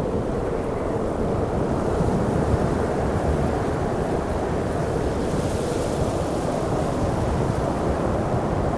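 Heavy snowstorm wind blowing in a steady, low rumbling roar, with a gust that briefly brightens the hiss about two-thirds of the way through.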